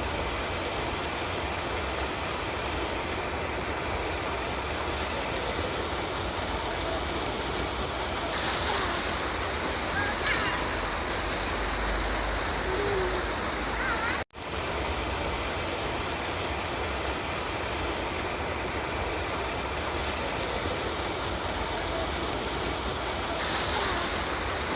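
River water flowing in a steady rush, with a few faint calls above it. The sound cuts out for an instant about fourteen seconds in.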